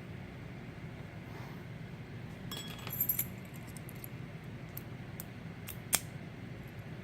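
Small metal parts of a disassembled padlock clinking as they are handled. There is a cluster of ringing clinks about three seconds in, faint ticks, and a single sharp click near the end.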